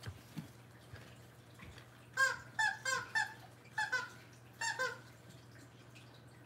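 Rubber squeaky dog toy squeezed and released, making about eight short squeaks in quick pairs, each dipping slightly in pitch.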